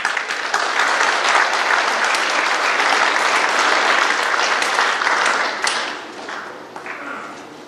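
Audience applauding, a dense clatter of many hands clapping that tapers off about six seconds in.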